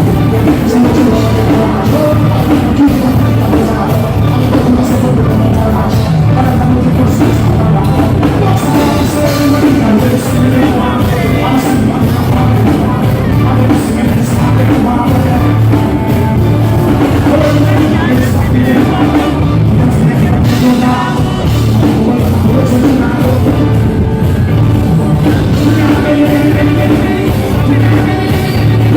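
Loud live dancehall concert music with a steady beat and a voice singing over it.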